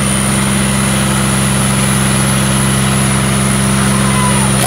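A tractor's diesel engine idling steadily and loud, with a thin, steady high whine over its low running note.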